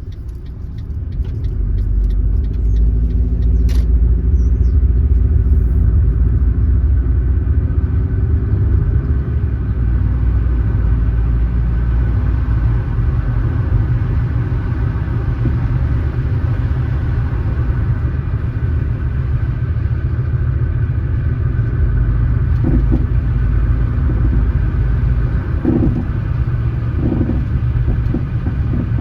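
Car driving: engine and tyre rumble that rises as the car speeds up over the first few seconds, then holds steady while cruising. A single sharp click comes about four seconds in.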